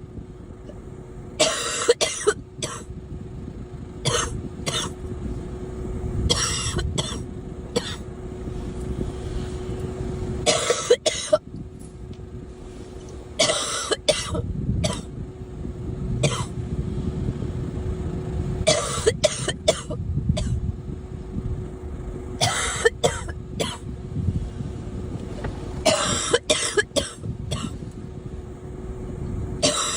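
A girl coughing in repeated bouts of two or three sharp coughs, a new bout every few seconds, over a steady low rumble.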